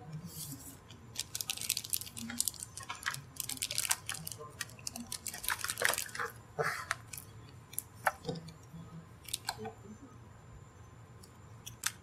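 Irregular crisp clicks, crackles and snips of LMR-195 coaxial cable being stripped and trimmed by hand with cutters. They are dense through the first seven seconds, then sparser, with a sharp click just before the end.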